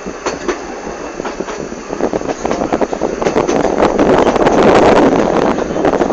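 Narrow-gauge railway carriage running along the track, rattling and clattering, getting louder about two seconds in.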